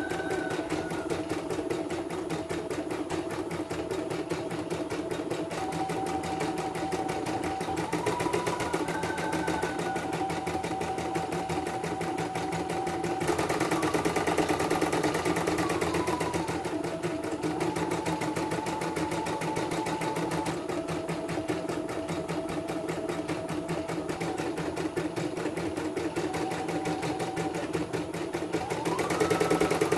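CNY portable computerized embroidery machine stitching a design on a test run after servicing: a fast, even run of needle strokes with a whine that changes pitch every few seconds. It runs louder for a few seconds around the middle.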